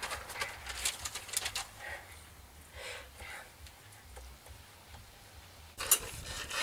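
Scattered soft clicks, taps and rustles of hands and clothing, mostly in the first two seconds. A sudden louder noise near the end opens onto a different background.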